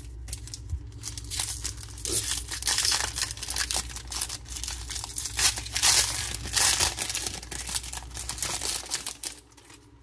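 Wrapper of a 2024 Topps Series 1 baseball card pack crinkling and tearing as it is pulled open by hand. The crackling starts about a second in, is loudest in the middle and dies away near the end.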